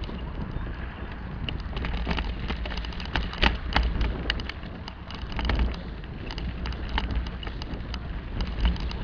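Bicycle riding onto a rough, potholed dirt road: wind buffets the microphone with a steady low rumble, and from about a second and a half in, frequent sharp rattles and knocks come as the bike jolts over gravel and debris.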